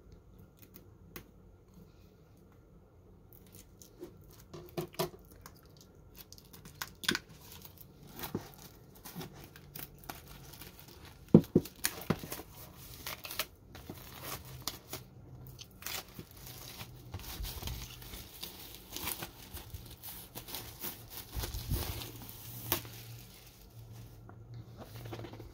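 Plastic shrink wrap being torn and peeled off a vinyl record's cardboard gatefold sleeve: irregular crinkling and crackling starting a few seconds in, with sharp snaps, the loudest a little under halfway through.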